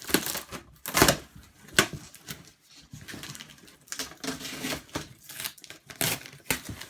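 Cardboard drone packaging being pried open and handled: irregular scrapes, knocks and rustles, with a few sharp louder clacks.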